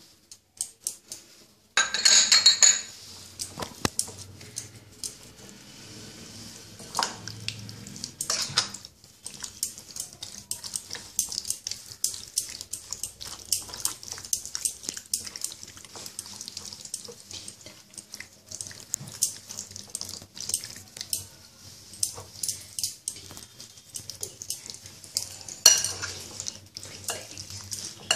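Raw chicken pieces being mixed by hand with spices and ginger-garlic paste in a glass bowl: soft wet squelching with frequent light clicks, and a spoon knocking against the glass bowl about two seconds in and again near the end.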